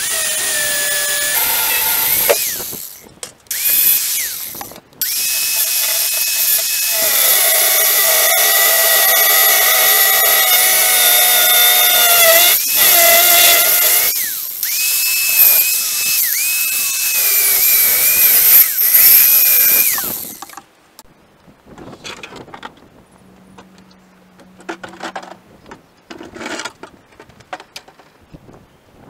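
Corded angle grinder cutting through a steel bicycle axle: a loud high whine that drops in pitch as the disc bites and rises again when it eases off, stopping briefly twice in the first few seconds. The grinder shuts off about twenty seconds in, leaving a few quiet knocks and clatter.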